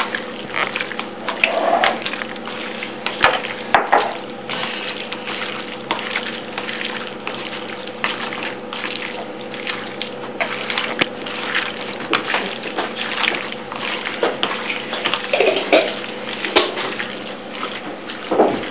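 Hands kneading and squeezing diced duck meat in an oily marinade of grated onion, garlic and spices in a plastic tub: a run of irregular wet squelches, over a faint steady hum.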